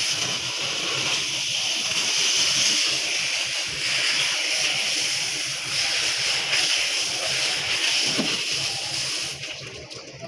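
Water jet spraying steadily onto an air conditioner unit during cleaning, a continuous splashing hiss that drops away about nine seconds in.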